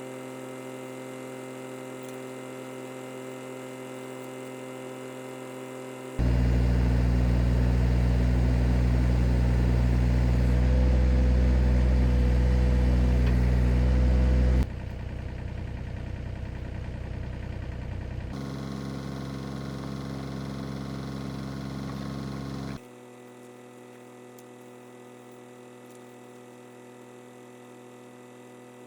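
Mini excavator's diesel engine running steadily across a few spliced shots. The engine sound jumps much louder about six seconds in, drops back about fifteen seconds in, and is quieter again from about twenty-three seconds.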